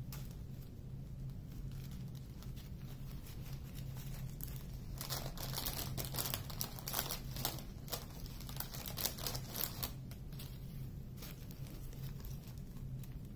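Small plastic zip-lock bags of diamond painting drills crinkling as they are handled and packed into a larger bag, with a busy stretch of crackling from about four and a half seconds in to about ten seconds. A steady low hum sits underneath.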